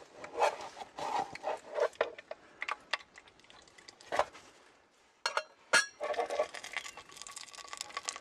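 Spatula scraping inside a small stainless steel pot and clinking against its rim while a baked loaf is lifted out and turned, with scattered knocks and two sharp metallic clinks that ring briefly a little past the middle.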